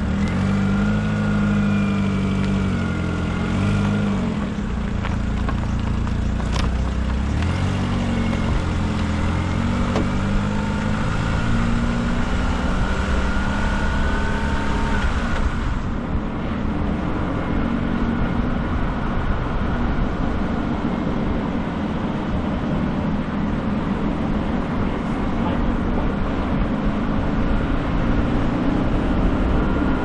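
Passenger car driving slowly, heard from beside its front wheel: the engine runs with its pitch shifting up and down. About halfway through this gives way to a steady rushing of tyres rolling on asphalt.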